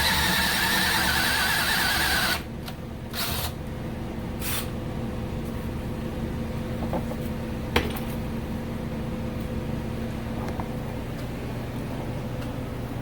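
Power drill boring through the steel bumper shock absorber with a step bit, running for about two seconds and then stopping, followed by two short bursts. After that, a low steady hum and a single sharp click a few seconds later.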